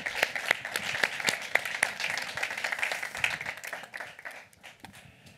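Audience applauding with dense, irregular clapping that thins out and fades away near the end.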